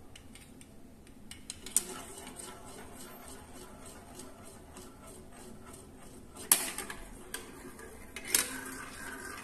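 Marbles rolling and rattling through a marble run of blocks, a steady stream of small clicks, with three sharper clacks about two seconds in, about six and a half seconds in, and near the end.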